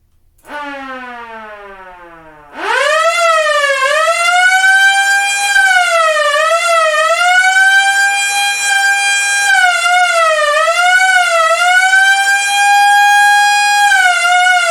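1950s American police siren: a quieter falling tone for about two seconds, then it winds up sharply and wails, its pitch rising and falling and holding high and steady for a few seconds at a time.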